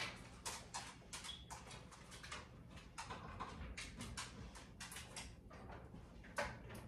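Irregular light clicks and taps of a dog's claws on a hard floor as it walks about, mixed with a person's footsteps, with one louder knock near the end.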